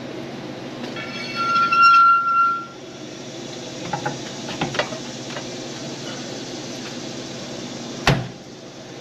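Cordless drill running for about a second and a half with a steady whine, then a few light metal clicks and one sharp knock near the end as a steel mounting bracket is fitted with bolts.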